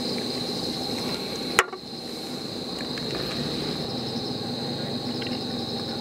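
Insects trilling steadily at a high pitch over a low steady hum, with one sharp click about a second and a half in, after which the sound briefly drops away.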